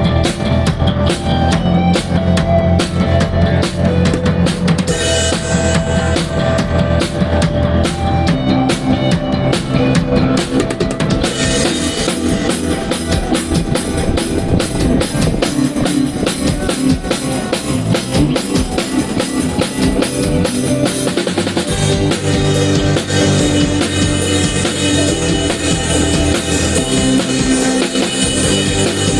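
A live band playing at a sound check, led by a drum kit: bass drum and snare strokes over low held notes. About eleven seconds in, a dense cymbal wash comes in and carries on under the rest.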